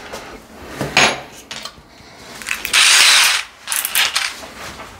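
Cordless drill with a 3 mm bit drilling into the tiled wall in one short burst of a little under a second, about halfway through. Light knocks and clicks from handling come before and after it.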